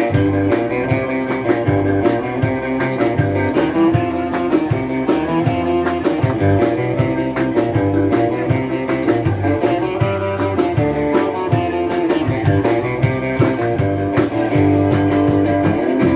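Rock music with guitar over bass and a steady drum beat.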